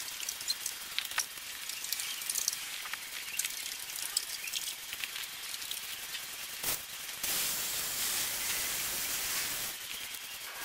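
Wet car-wash sponge scrubbing a soap-foamed plastic car bumper: a soft hissing rub with many small wet ticks, then a steadier, louder hiss for a couple of seconds about seven seconds in.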